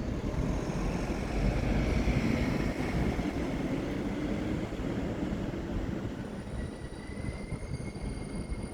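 Intermodal freight train rolling through a station, its wagons rumbling on the rails while the wheels squeal. Thin squeal tones rise out of the rumble, and a steady high-pitched squeal holds from about six seconds in as the rumble eases.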